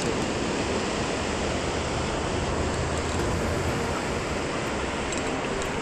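Steady, even rush of surf breaking on a sandy beach.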